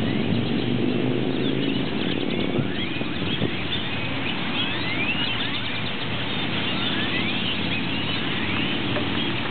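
A dense chorus of purple martins, many short chirps overlapping continuously from a flock coming in to roost. Underneath, a motor vehicle's engine hums, strongest in the first couple of seconds and again near the end.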